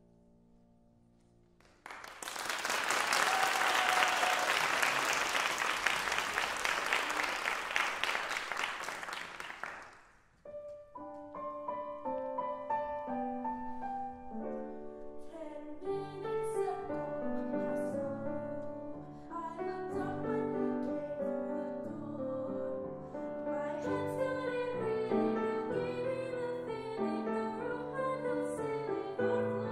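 Audience applauding for about eight seconds, then a grand piano begins playing, starting about ten seconds in, with lower notes joining a few seconds later.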